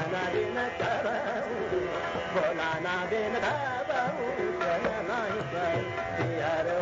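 Hindustani classical male vocal in Raag Marwa: a singer's gliding, wavering melodic phrases over a steady tanpura drone, with tabla accompaniment.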